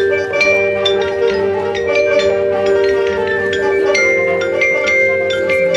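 Marching band music led by the front ensemble's mallet percussion: quick marimba and glockenspiel notes over long held chords.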